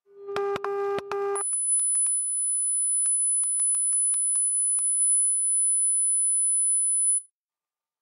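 Sine-wave test tones played through a small class-D audio amplifier: a low tone with a strong row of overtones switches, about a second and a half in, to a steady very high-pitched tone. Scattered clicks run through both tones, and the high tone cuts off suddenly near the end.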